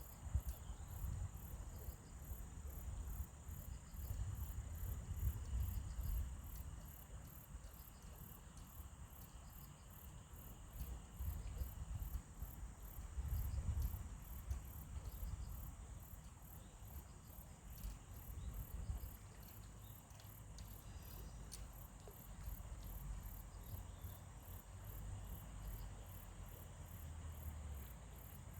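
Crickets chirping in a steady, evenly pulsed high chorus, with a constant high buzz beneath. A low rumble rises and falls under it.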